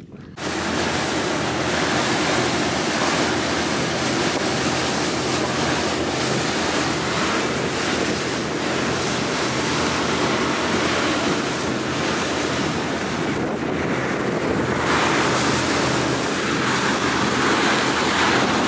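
Fishing charter boat running at speed: loud, steady wind blasting the microphone and water rushing along the hull, over a low, even engine drone.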